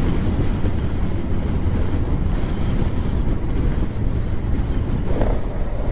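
Motorcycle engine running under way, with wind buffeting the helmet microphone as a steady rushing noise.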